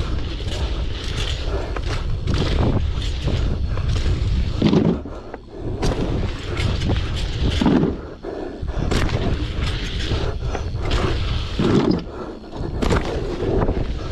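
Riding a bicycle over dirt jumps: wind buffets the microphone and the tyres rumble, with repeated knocks and a few heavier thumps, about 5, 8 and 12 seconds in.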